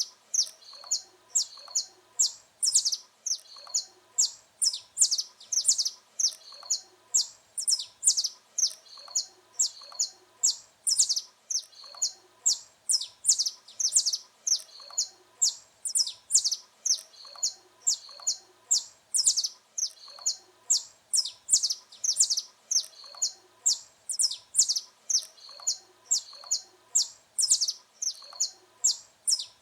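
Saffron finch (canário-da-terra) singing: a long, unbroken run of sharp, high chirps, about two to three a second.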